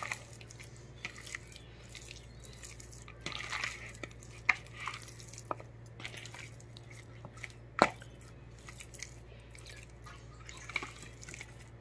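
Raw chicken pieces being rubbed and turned by hand with turmeric and salt in a plastic bowl: soft, scattered wet squelches and small clicks, the loudest about eight seconds in. A faint steady hum runs underneath.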